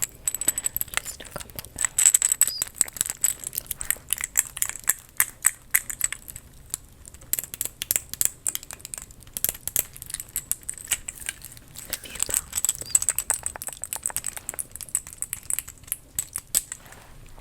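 Close-miked ASMR tapping and scratching on small props: a dense run of quick, crisp taps and crinkly rustles, with a short lull about seven seconds in.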